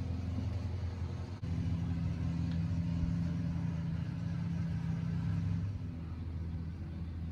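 Steady low engine-like hum from a motor running, growing louder about a second and a half in and easing off again near the end.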